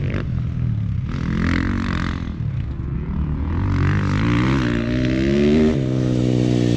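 Dirt bike engine revving on a motocross track, its pitch rising and falling as the rider works the throttle, climbing for a couple of seconds and dropping off sharply near the end.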